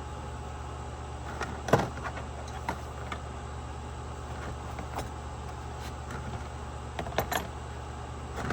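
Metal hand tools, files and a scrench, being set into a small toolbox: scattered clicks and clunks, the loudest about two seconds in and a quick pair near the end, over a steady low hum.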